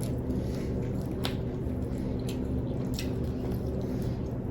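Faint squishing and a few small clicks of food being handled and eaten, over a steady low background hum.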